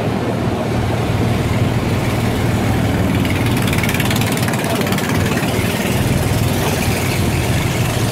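Boat engine running steadily while the boat travels along the water, a constant low drone.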